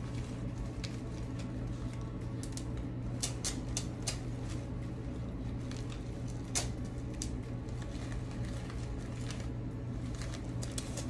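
Scattered light clicks and rustling of artificial rose stems and petals being handled and worked into a flower ball, several clicks close together about three to four seconds in and a sharper one a little later, over a steady low hum.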